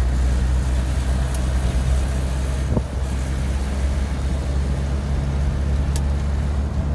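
Volkswagen Kombi van driving at a steady speed, heard inside the cab: a steady low engine drone with road noise.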